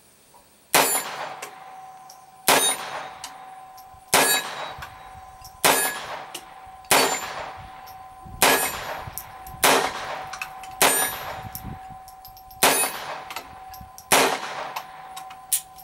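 Ten shots from a Star Model F .22 LR semi-automatic pistol, about one every second and a half. Each is followed by the steady ringing tone of a steel target being hit.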